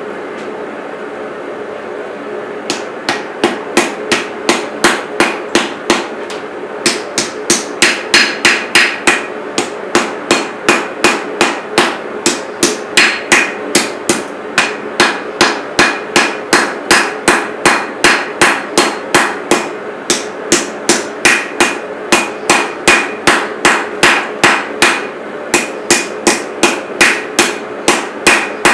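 Hand hammer forging a steel chef's knife blade on an anvil: steady blows about two a second, starting about three seconds in, with a few short pauses, some blows ringing. A steady hum runs underneath.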